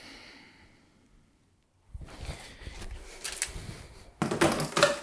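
Shuffling and handling noises, then a little over four seconds in a sudden loud clatter as a fishing rod is shoved into a plastic swing-lid trash can, knocking the lid open.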